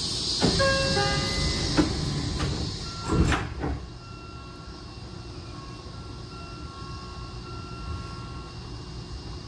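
Sotetsu 20000-series train's passenger doors closing: a short door chime sounds, then the sliding doors run shut and meet with a thump about three seconds in. The high hiss from outside drops away as they close.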